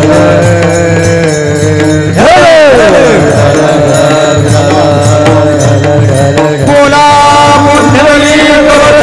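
Warkari kirtan devotional music: held tones with steady accompaniment and many quick ticks, and a sung note sliding steeply down in pitch about two seconds in.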